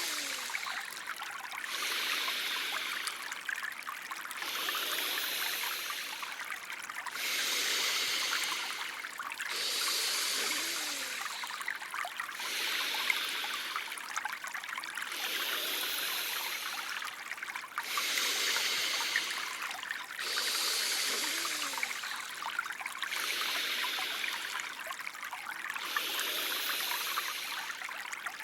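Recorded breathing sound effect for alternate-nostril (Anulom Vilom) breathing: slow, hissing nasal breaths in and out in turns, a breath every two to three seconds. Under the breaths runs a steady trickling stream.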